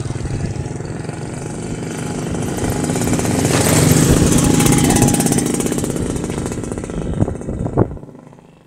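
Single-cylinder 50cc gasoline engine of a large RC model plane, running hard. It grows louder to a peak about halfway, then fades away near the end, as the plane passes by.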